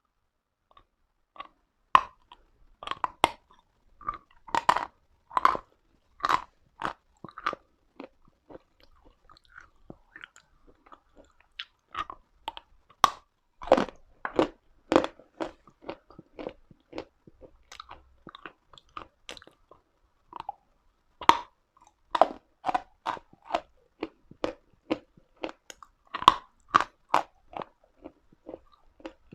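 Close-up biting and chewing of pressed Uslada chalk: a run of sharp, dry crunches, several a second, in irregular clusters.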